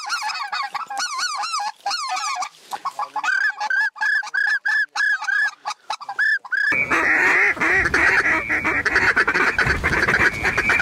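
A hunter blowing a Canada goose call: a quick run of honks and clucks, a string of short rising-and-falling notes that speeds up to about four a second. About two-thirds of the way through it gives way abruptly to a dense, overlapping din of goose calling with wind rumble on the microphone.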